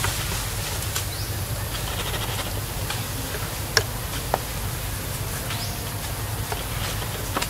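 Outdoor ambience: a steady low hum with a few sharp clicks, two of them close together just before the middle, and a couple of faint short rising chirps.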